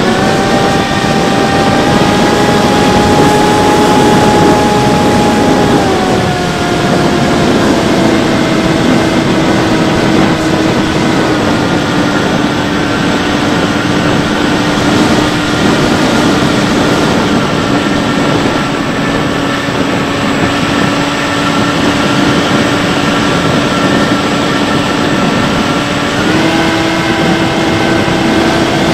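Bixler 3 RC plane's electric motor and propeller whining steadily in flight, heard from on board with heavy wind rush over the airframe and camera. The motor's pitch drops about six seconds in, eases down a little more near the middle, then steps back up shortly before the end as the throttle is changed.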